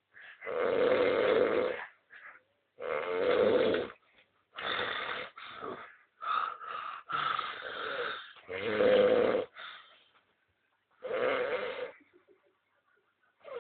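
A person snoring loudly, a string of snores about one every one and a half seconds with short silent gaps between, and a longer pause about ten seconds in.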